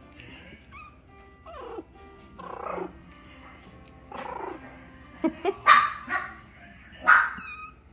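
A small dog barking in short, sharp barks, with a few shorter, falling calls before a run of louder barks in the second half.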